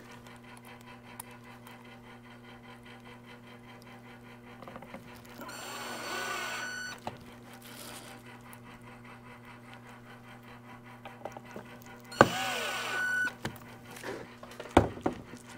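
Cordless drill driving two small screws into a display's plastic back cover: two short runs of motor whine about six seconds apart, the first a little over a second long. A sharp click comes near the end, over a steady low electrical hum.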